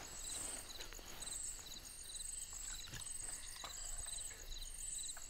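Night insects chirping in a steady chorus: short high chirps and triple-pulsed calls repeating about twice a second, with a few faint clicks about three seconds in.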